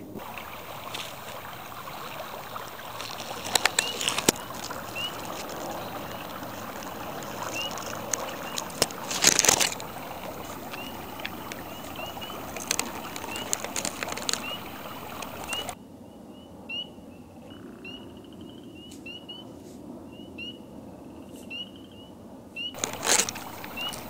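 Outdoor nature ambience: many short, high, rising chirps from small animals, repeating irregularly over a steady hiss. The hiss drops away about two-thirds of the way through, leaving the chirps clear. A few sharp knocks stand out, the loudest near the middle.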